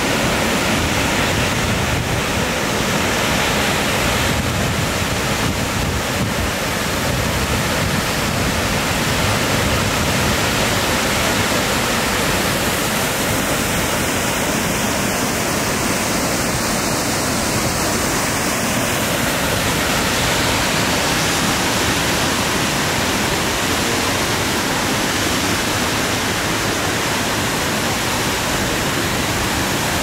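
Steady rush of water from Öxarárfoss waterfall and the rapids of the river below it.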